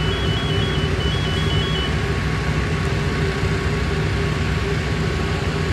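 Fire apparatus idling on scene: a steady low engine drone. A high electronic tone flips between two pitches in two short runs in the first two seconds.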